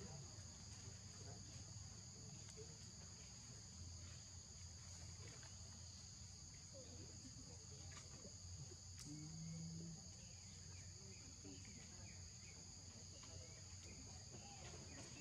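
Insects calling steadily: a faint, continuous high-pitched drone in two unbroken tones.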